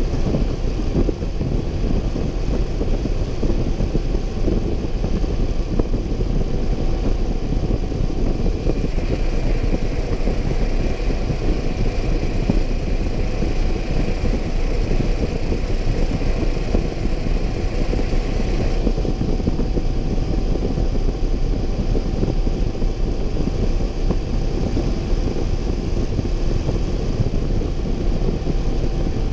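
Motorcycle running steadily at cruising speed under a dense rush of wind noise on the camera. For about ten seconds in the middle, a higher hiss joins in.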